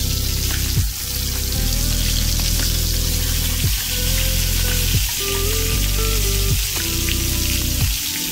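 Tilapia fillets in a fish-fry coating frying in hot oil, with a steady sizzling hiss. Background music with low sustained notes that shift every second or so plays over it.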